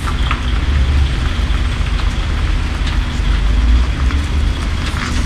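Heavy haulage truck's diesel engine idling steadily with a low rumble.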